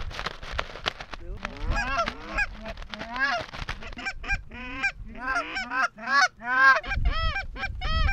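Canada goose honks and clucks, loud and close, coming in a rapid string from about a second and a half in.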